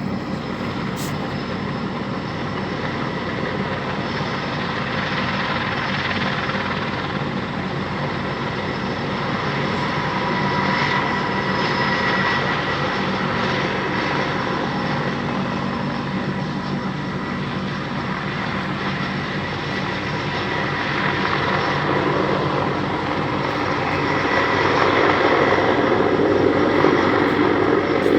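A large helicopter running steadily, a dense engine-and-rotor noise with a few steady whining tones on top, growing louder over the last several seconds.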